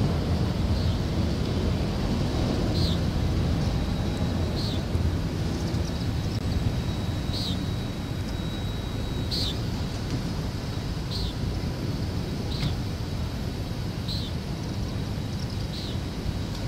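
Autorack freight cars rolling past: a steady low rumble of steel wheels on rail, with short high squeaks every couple of seconds and one longer high squeal around the middle.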